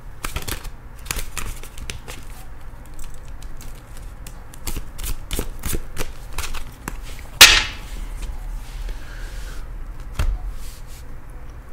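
A deck of tarot cards being shuffled by hand, the cards clicking and slapping against each other in quick irregular strokes, with one much louder snap of the cards about seven seconds in. About ten seconds in, the deck knocks down onto a glass tabletop.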